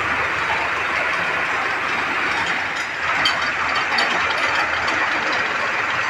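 Tractor-driven poultry feed mixer running: a steady mechanical rattle and clatter, with a few sharper clicks about three to four seconds in.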